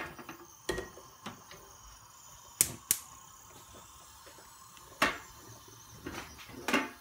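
Cookware being handled in a kitchen: a few sharp, separate clicks and knocks of a pot and utensils, about seven spread over several seconds, with quiet between them.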